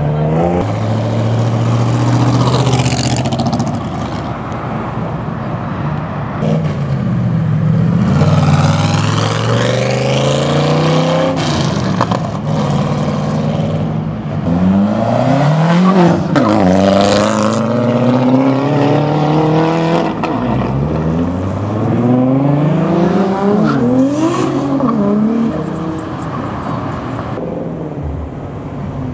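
Several modified cars pulling away one after another, each engine revving hard with its pitch climbing and falling again several times through loud exhausts.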